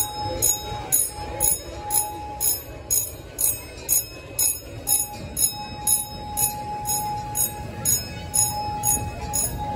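Miniature railroad crossing signal bell ringing steadily at about two strikes a second, the warning that a train is crossing or about to cross.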